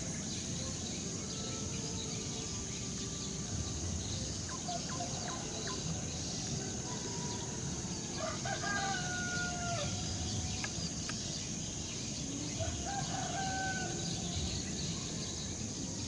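Rooster crowing twice, each crow lasting about a second and a half, over a steady high-pitched insect drone.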